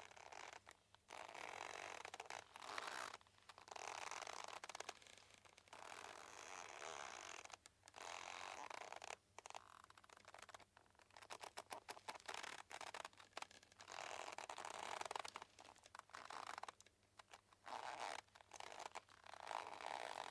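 A boat's ropes creaking under strain as the boat shifts, in drawn-out creaks of a second or two with short pauses between, some breaking up into rapid ticking.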